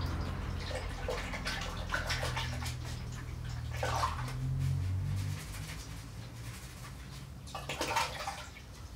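Water running and splashing as a paintbrush is rinsed clean of Portland cement slurry.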